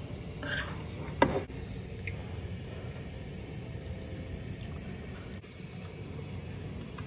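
Spatula stirring a stir-fry of beef meatballs and ground beef in a pan, the wet food squishing, with two short knocks or scrapes about a second in, over a steady low background noise.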